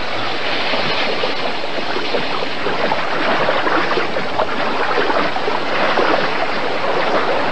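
Fast-flowing creek water rushing steadily, with a fine splashing texture.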